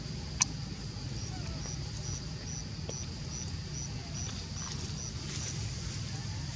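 Outdoor ambience: a steady high drone over a low rumble, with a run of short high chirps repeating about two a second. One sharp click sounds about half a second in.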